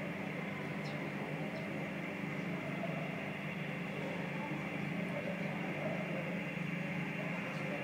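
Airbus A340-300's four CFM56 jet engines at taxi idle: a steady low drone with a thin high whine held over it.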